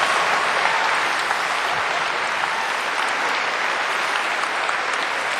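A large audience applauding steadily, a dense even clatter of many hands clapping.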